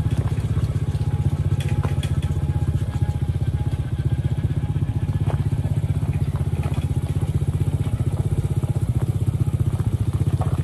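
A vehicle running steadily along a gravel lane: a low drone with a fast, even pulse that does not change, with a few light clicks and crunches over it.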